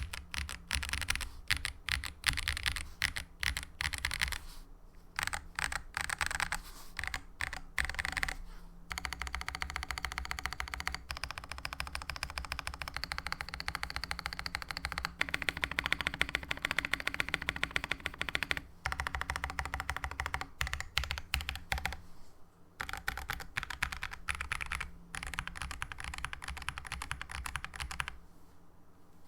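Continuous fast typing on a Meletrix Zoom TKL mechanical keyboard with lubed Gazzew Boba U4T tactile switches and GMK keycaps, a dense stream of key strokes broken by a few short pauses.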